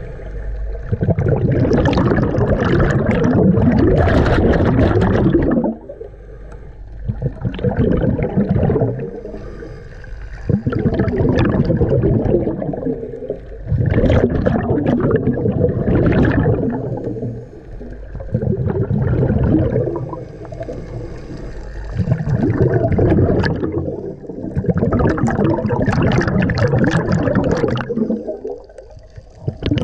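Scuba diver breathing through a regulator underwater: loud bubbling bursts of exhaled air every three to four seconds, with quieter gaps between as the diver inhales.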